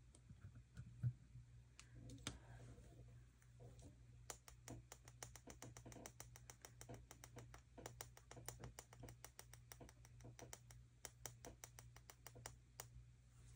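Faint, rapid, irregular light clicks and taps of small craft cut-outs being handled and pressed with the fingers on paper.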